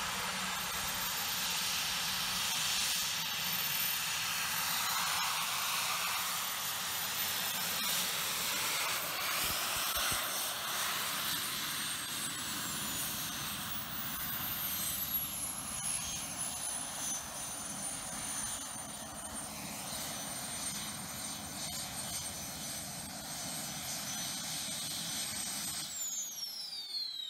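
Jet suit's small jet turbines running with a loud rush and a high whine as the wearer flies in and lands. The whine drops in pitch partway through, and about a second before the end the turbines spool down, the whine sliding steeply lower as the sound fades.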